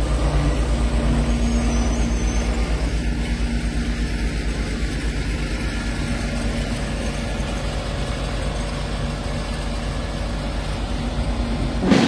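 MAN D2066 straight-six diesel of a TGS 32.360 concrete mixer truck idling: a steady low rumble with a fast, even pulse.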